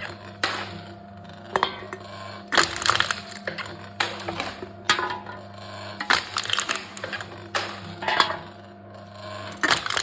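Aluminium cans being crushed in a crushing machine: about nine short bursts of sharp metallic crackling and crunching, roughly one a second, over a steady low hum.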